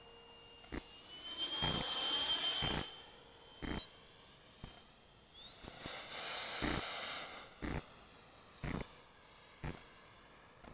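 RC model jet passing low twice with a high whine and a rush of air. The first pass swells about one to three seconds in. The second builds from about five and a half seconds, and its pitch drops sharply as it goes by near seven and a half seconds. A short knock repeats about once a second.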